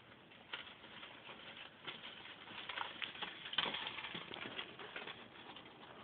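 Mice fighting: a flurry of scuffling, scratching and clicking, loudest about three and a half seconds in.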